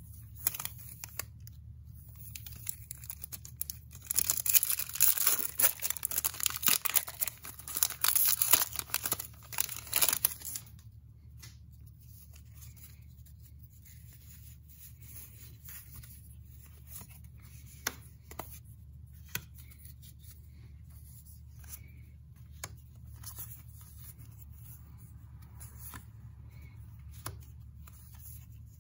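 The foil wrapper of a Magic: The Gathering Collector booster pack is torn open and crinkled, loud from about four seconds in for some six seconds. After that come quieter rustles and light clicks as the playing cards are handled and flipped through.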